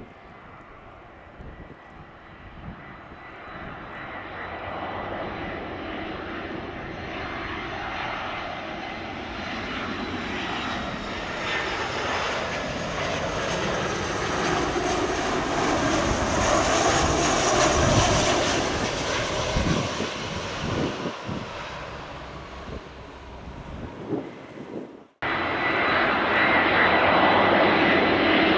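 Airbus A319 airliner's twin CFM56 turbofan engines on landing approach: a steady jet whine and rush that grows steadily louder as the plane comes close, is loudest past the middle, then eases off. Near the end the sound breaks off for an instant and comes back loud.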